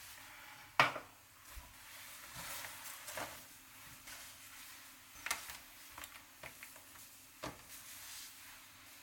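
Kitchen handling sounds: scattered knocks and clinks of dishes and utensils being moved, the loudest about a second in, over light rustling.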